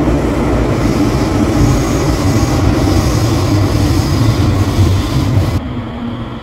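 A Cologne Stadtbahn light-rail car heard from inside while running: a heavy rumble of wheels on rail with a faint high whine partway through. About five and a half seconds in, the high-pitched running noise cuts off and the sound gets quieter as the car pulls into a station.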